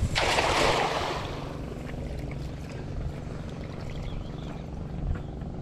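A cast net hitting the water: a splashy hiss of the mesh and its lead weights striking the surface, lasting about a second. A steady low hum runs underneath afterwards.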